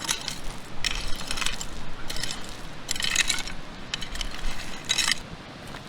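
A shovel scraping and crunching into gravelly soil in about six short strokes, roughly a second apart, as a hole is filled back in.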